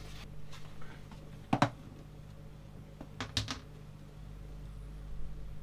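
Handling noise from the plastic tub and its paper lining: a sharp double click about one and a half seconds in and two more clicks a little after three seconds, over a steady low hum.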